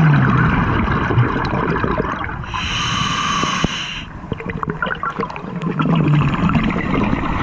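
Scuba diver breathing through a regulator underwater: exhaled bubbles bubbling and crackling, with a hissing breath about two and a half seconds in that lasts just over a second.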